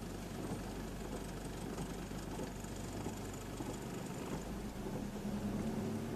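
Vehicle engine idling, heard from inside the cabin in stop-and-go traffic, over a steady hiss of rain. The low engine hum grows a little stronger in the second half.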